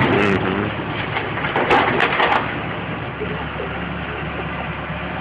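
Timber cracking and splintering as the burnt roof of a fire-gutted brick building is pulled apart by a boom machine during demolition, in two bursts: at the start and about two seconds in. A heavy machine's engine runs steadily underneath.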